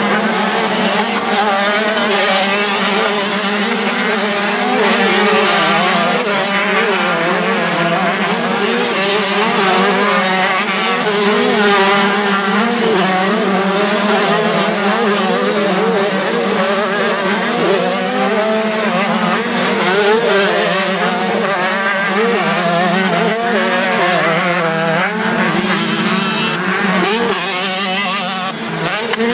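A pack of 125 cc two-stroke motocross bikes racing past, their engines revving and shifting, with many engine notes overlapping and rising and falling.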